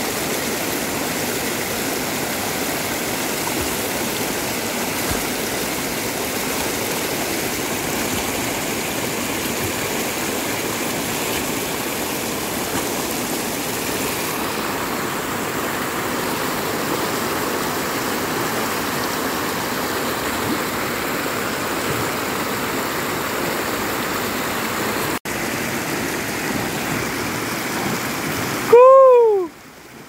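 Rushing water of a stream, a steady noise with a brief break about 25 seconds in. Near the end a short, loud tone glides up and back down in pitch and stops abruptly.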